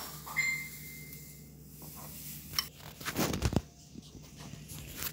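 A metal spoon knocking and scraping against bowls while yogurt is spooned out, with a few sharp clicks. One knock near the start leaves a short ringing tone from the steel bowl, and there is a brief rustle about three seconds in.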